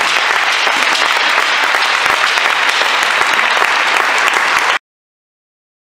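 Applause, a steady mass of clapping that cuts off abruptly near the end.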